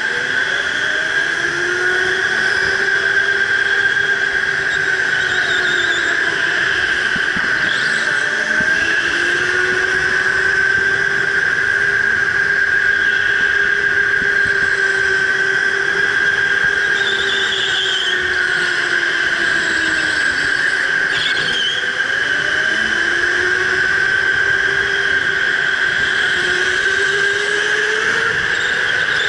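Electric go-kart's motor whining, its pitch rising and falling smoothly as the kart speeds up down the straights and slows for the corners. Short tyre squeals on the concrete come through now and then in the turns.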